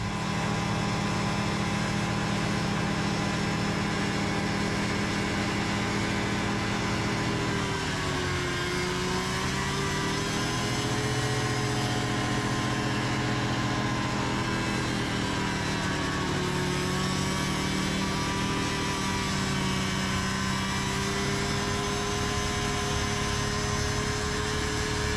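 Engines of a backhoe-mounted snowblower rig running steadily. The pitch sags and recovers several times, most clearly about eight to ten seconds in.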